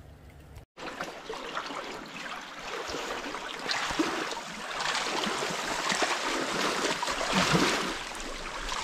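Kenai River current rushing and splashing around a wading angler's legs, breaking off briefly under a second in, then returning and growing louder.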